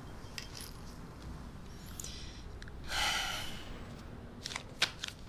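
A person's short, sharp breath out, like a snort or sigh, about three seconds in, with a few faint clicks and rustles around it.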